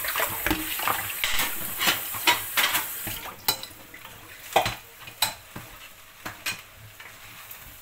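Gallo pinto (rice and beans) frying and sizzling in a pan while a spatula stirs and scrapes it. The stirring is busy for about the first three seconds, then slows to a few separate knocks of the spatula against the pan.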